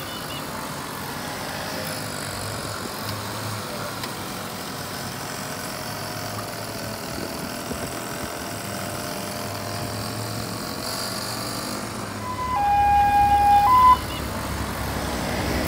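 Small two-stroke VéloSoleX moped engines running as the mopeds ride past. About twelve seconds in, a loud siren-like horn sounds for about a second and a half and cuts off suddenly.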